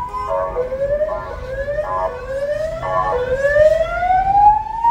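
Ambulance siren going by: a wail that sweeps up in pitch about once a second, broken by four short steady blasts, then changes to one long slow rise near the end.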